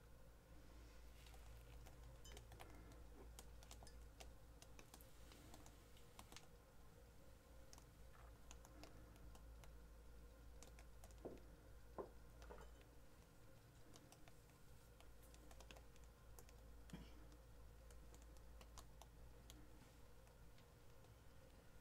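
Near silence with faint, irregular light clicks and taps from gloved hands tilting and handling a stretched canvas, over a low steady hum.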